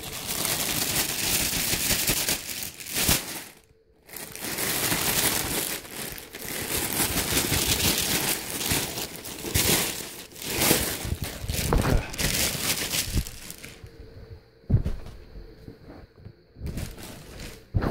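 Thin clear plastic bag crinkling and rustling in irregular spells as a folded denim vest is pulled out of it, with a brief pause about four seconds in and a quieter stretch near the end.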